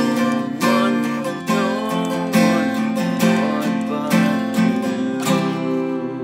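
Acoustic guitar strummed in slow chords about once a second, with a man's voice singing over it. The last chord is struck about five seconds in and left ringing as it fades.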